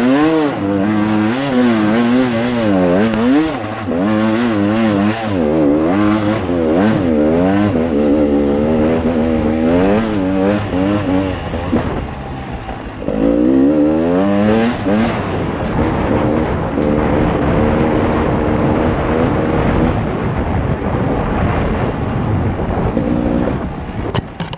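Beta RR 300 two-stroke enduro bike engine revving up and down as it is ridden along a trail, the throttle opening and closing about once a second. Its pitch sags about halfway through, then climbs sharply.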